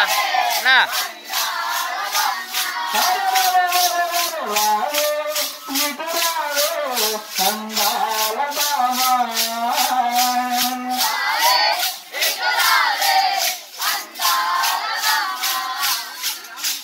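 Voices singing a Telugu devotional bhajan, accompanied by a steady beat of hand-held jingling clappers or rattles, about three strikes a second.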